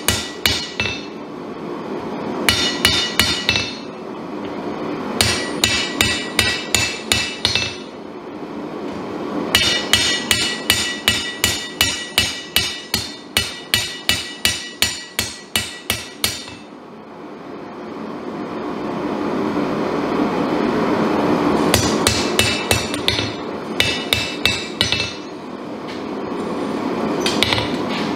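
Hand hammer striking a damascus chef's knife blade on a Kohlswa steel anvil, in bursts of blows at about three a second with a bright metallic ring; the longest run comes in the middle, with shorter bursts before and after. A steady rushing noise swells in the pauses between bursts.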